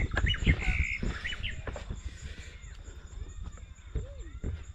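Small birds chirping in short rising and falling calls. In the first second and a half there are several sharp knocks and rustles of cut weed stems being handled and set down.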